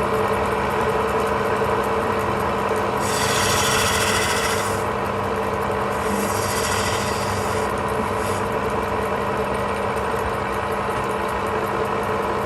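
Wood lathe running with a steady motor hum while a turning tool cuts into the spinning wood, giving three scraping passes of about a second each, a third, a half and two thirds of the way through.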